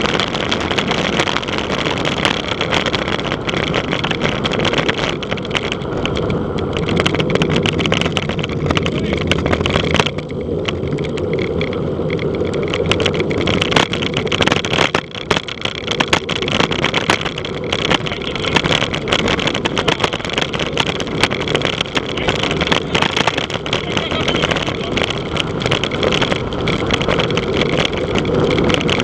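Wind rushing and buffeting over the microphone of a camera on a moving bicycle, with tyre and road rumble underneath. It eases briefly twice, about ten and fifteen seconds in.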